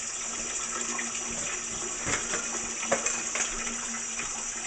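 Kitchen tap running steadily into the sink, with a few sharp knocks and clatters of a plastic colander and glass bowl being handled, about two and three seconds in.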